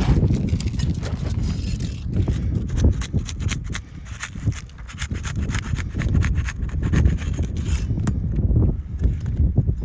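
Footsteps and shoe scuffs on an asphalt shingle roof: irregular knocks and gritty scrapes over a low rumble.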